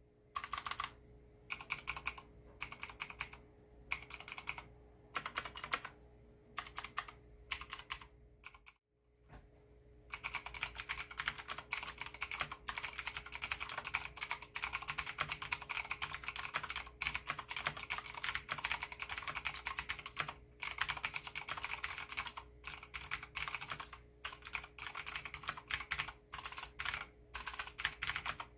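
Leopold FC660M mechanical keyboard with clicky Cherry MX Blue switches and MDA Big Bone keycaps being typed on. Short runs of keystrokes with pauses come first, then from about ten seconds in fast, continuous typing, over a faint steady hum.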